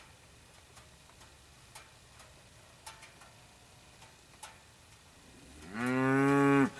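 A cow mooing once near the end, a loud call of about a second that rises at the start and then holds a deep steady pitch. Before it, only faint scattered ticks.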